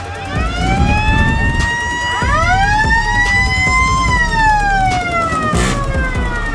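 Several sirens wailing at once, their tones overlapping and climbing to a peak about four seconds in, then sliding down, over the low rumble of car engines.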